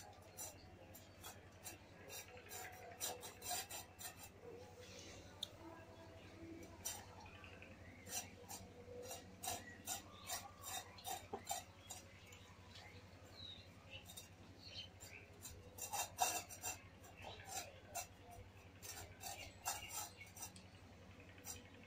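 An Indian street dog eating from a metal bowl: its teeth and tongue clink and scrape against the metal in irregular runs of small clicks.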